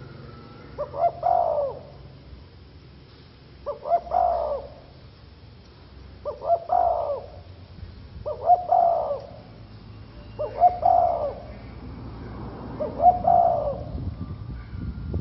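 Caged spotted dove cooing: six phrases about two seconds apart, each a short run of quick notes ending in a longer coo.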